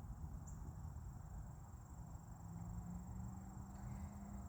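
Faint, steady high-pitched trill of crickets over a low background rumble.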